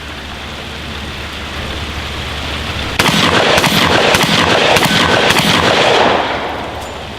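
Emperor MX5 semi-automatic 12-gauge shotgun fired about five times in quick succession, a shot roughly every half second, the action cycling each shell. Steady rain hiss underneath.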